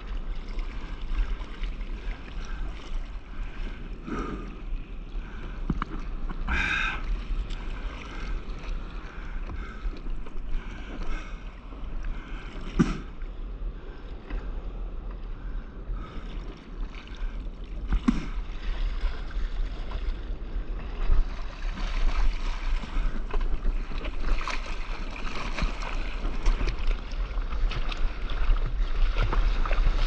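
Sea water sloshing and splashing around a surfboard, heard at the waterline, with wind buffeting the microphone and a few brief splashes. It grows louder and rougher over the last several seconds as a wave washes over the board.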